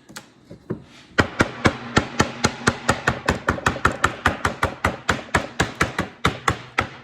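Rapid, even tapping on glued wood segments with a hammer or mallet, about four knocks a second, starting about a second in, as the wedges of a segmented bowl ring are seated.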